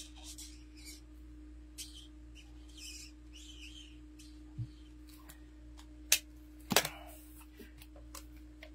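Stampin' Blends alcohol marker colouring on stamped cardstock: a run of short scratchy strokes, then a soft thump and a few sharp clicks a few seconds later, over a steady low hum.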